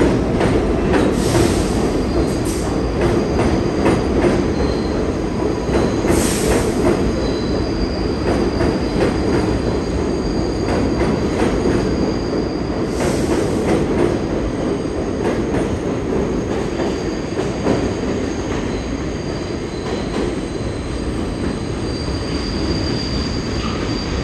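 New York City subway train of Kawasaki R62 cars running along the track through an underground station: a steady heavy rumble with repeated clicks of wheels over rail joints and a thin, high wheel squeal. The sound eases slightly toward the end.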